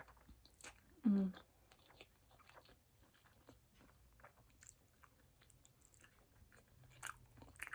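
A person chewing a mouthful of poke bowl (raw fish, sushi rice, seaweed salad and onions): soft, wet chewing and small mouth clicks, with one short vocal sound about a second in.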